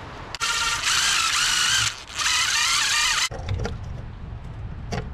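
Cordless drill running in two bursts of about a second and a half each, its motor whine wavering in pitch as the bit cuts through a rubber grommet, then stopping abruptly.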